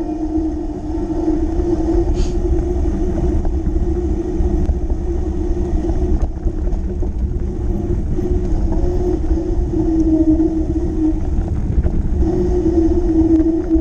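Fat bike rolling over a grassy track, with wind rumbling on the camera microphone and a steady low hum under it. A brief high squeak about two seconds in.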